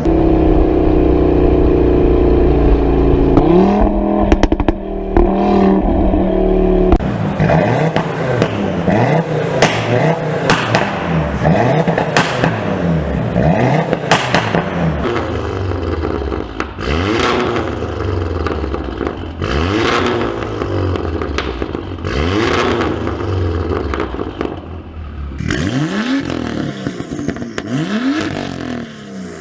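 Sports car exhaust, the engine held at high revs for the first several seconds. It then goes through a series of throttle blips, each rev rising and falling every couple of seconds with sharp crackles and pops from the exhaust on the overrun.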